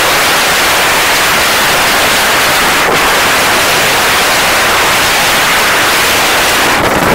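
Loud, steady rush of wind buffeting the microphone while snowkiting at speed.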